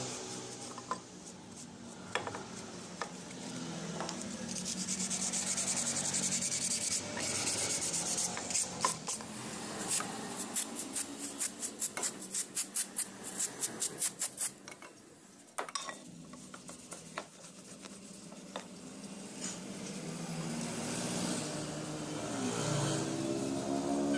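Parts of an old 600-watt electric hand planer being cleaned: a bristle brush scrubbing the metal housing with quick, scratchy strokes and a hiss of spray cleaner on the base plate, then a cloth rubbing the metal more quietly in the second half.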